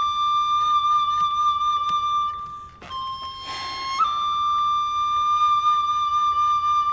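Background score: a solo flute holding long, steady notes, with a short break and a change of note about three seconds in.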